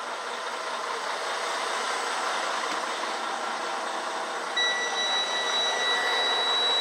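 Steady air rush of a semi truck's cab air conditioning blowing cold air, heard from inside the sleeper cab. A thin high steady whine comes in about four and a half seconds in.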